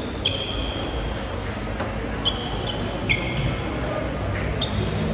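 Badminton doubles play on an indoor court: about six sharp racket strikes and high-pitched squeaks of court shoes on the floor, some squeaks drawn out to nearly a second, over a low background murmur.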